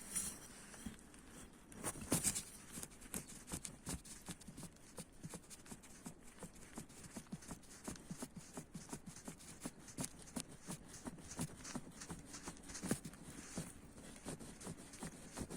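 Lifan X70 shock absorber, off the car, stroked by hand and knocking inside: light, irregular knocks several times a second, with a louder one about two seconds in. The knock comes from within the shock absorber itself, a sign that it is worn and needs replacing.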